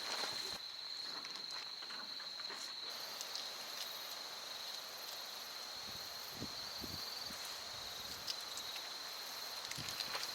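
Faint outdoor ambience: a steady high-pitched insect trill, with a few soft knocks and rustles.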